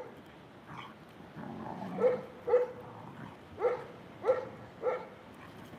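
Kangal shepherd dogs play-fighting, with one giving a run of short barks: one faint bark about a second in, then five louder ones from about two seconds in.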